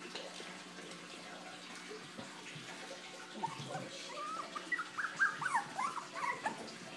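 Bichon Frise puppies whimpering: a quick run of short, high-pitched whines starting about halfway through, over a steady background hiss.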